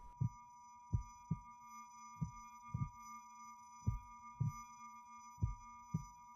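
Film sound effect: a steady high-pitched ringing tone over a slow heartbeat, low paired thuds coming about every second and a half.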